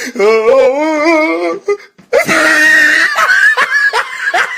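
Back-to-back meme sound-effect clips: a wavering, whimpering voice-like cry for nearly two seconds, then after a short break a harsh shriek, then a run of short rising chirps like snickering.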